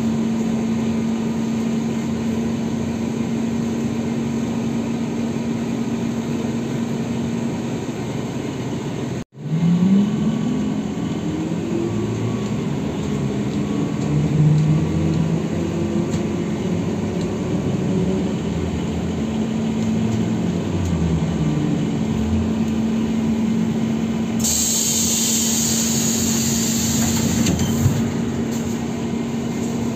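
ZiU-682 trolleybus heard from inside the cabin: a steady electrical hum, then the traction motor whine rising in pitch as it pulls away and gathers speed. A hiss joins in for a few seconds near the end.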